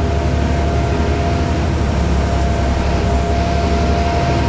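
Steady low rumble of a moving passenger train car heard from inside, with a faint steady whine above it.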